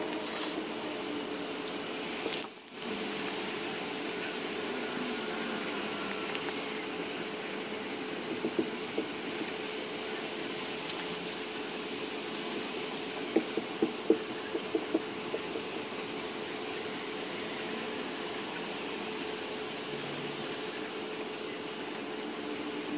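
Laminating roller worked over resin-soaked fiberglass cloth: a soft wet squishing, with a run of sharp clicks past the middle, over a steady hum.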